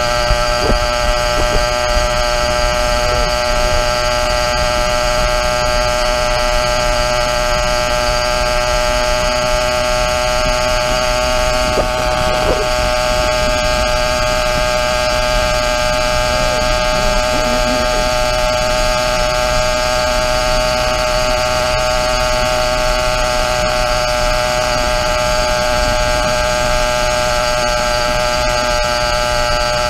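YD100 100cc two-stroke motorized-bicycle engine running at a steady cruising throttle: an even drone that holds one pitch throughout.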